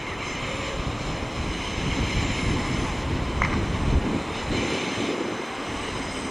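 West Midlands Railway Class 170 Turbostar diesel multiple unit running slowly into a platform, a steady diesel rumble with wind on the microphone. A brief high squeak about halfway through.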